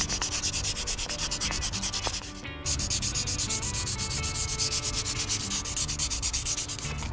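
Sandpaper rubbing back and forth by hand on the chrome rod of a mini excavator's hydraulic arm cylinder, in rapid, even strokes with a brief pause about two and a half seconds in. The rod is being smoothed of rust pits, starting at 600 grit, so that they do not wear the seal and leak oil.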